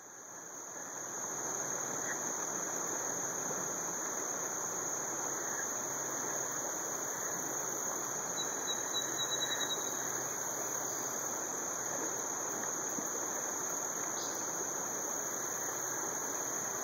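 Steady outdoor ambience: a continuous high-pitched insect drone over an even rushing background noise, with a brief chirping trill about eight seconds in.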